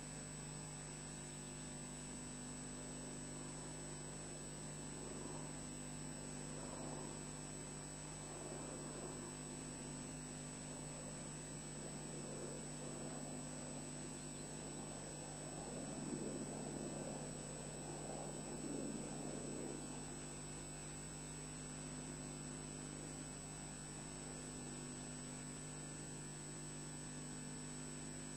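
Steady electrical hum from a nest camera's audio feed. A soft rushing noise swells up a few times, most strongly about halfway through.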